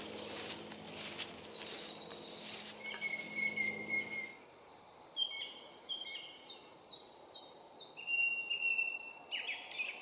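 Woodland birdsong. From about five seconds in, one bird repeats quick series of high chirping notes over and over, and another holds a long thin whistling note. Before that a low steady hum and a few soft footsteps are heard, with a single thin whistled note.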